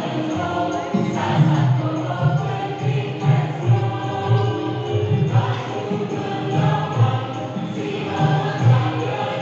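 A choir singing, with sustained notes over a regular low pulse.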